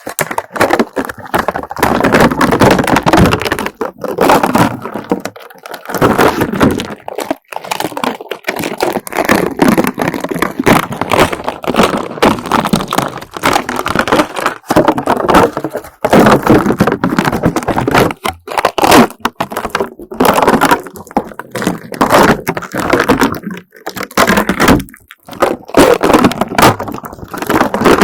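Slime being peeled off and pulled apart by hand: dense sticky crackling and popping in stretches of a few seconds, with short pauses between pulls.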